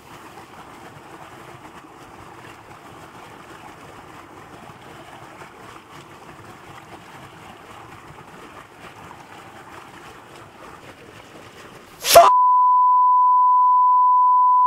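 Faint steady hiss for about twelve seconds, then a sudden short burst of noise and a loud, steady 1 kHz test tone: the beep that goes with television colour bars.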